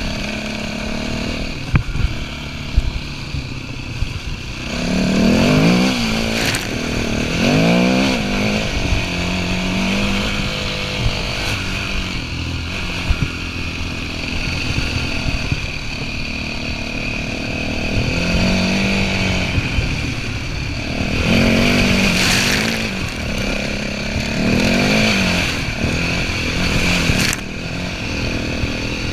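Yamaha WR400F dirt bike's single-cylinder four-stroke engine being ridden, revving up and dropping back again and again as the throttle is worked through deep mud. A few sharp knocks from the bike over the ruts.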